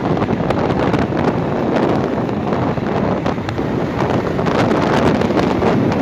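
Heavy wind buffeting the microphone of a phone held by a rider on a moving motorbike, a loud, steady rush with irregular gusty pops.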